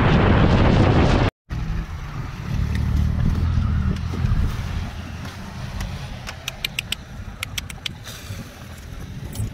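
Wind buffeting the microphone for about a second, then, after a cut, a car engine running with a steady low drone, with a few sharp clicks near the end.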